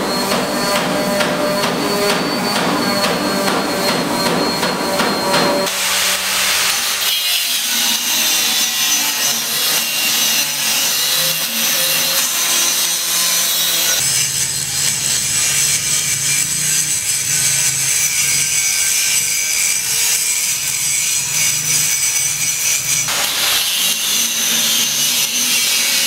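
Loud construction tool noise that changes character abruptly three times.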